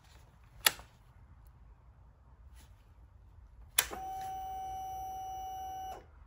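A sharp click, then about three seconds later another click followed by a steady whine for about two seconds that cuts off abruptly. These are the BMW G310 GS's ignition being switched off and back on, and its electric fuel pump priming at switch-on.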